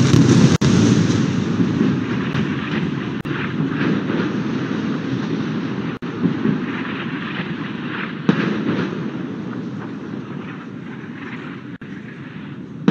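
Airstrike explosion heard from a distance: a loud blast at the start, then a long rumble that slowly fades, with another sharp bang about eight seconds in.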